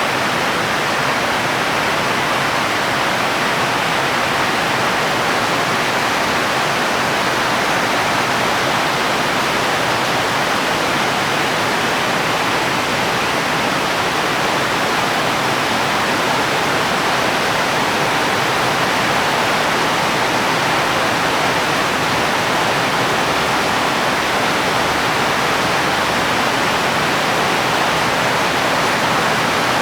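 Heavy rain falling steadily as an even, unbroken hiss with no separate drops or thunder.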